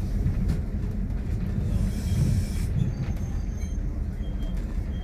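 Heritage diesel multiple unit on the move, heard from inside its front cab: a steady low rumble of the diesel engine and the wheels running over the track.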